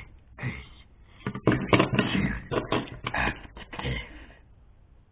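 A person's voice making vocal sound effects with the mouth, in short choppy pulses, loudest from about a second and a half to three and a half seconds in.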